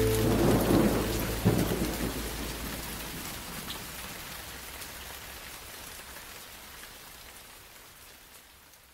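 Rain falling steadily, with a rumble and crack of thunder in the first second or two, the whole fading out gradually.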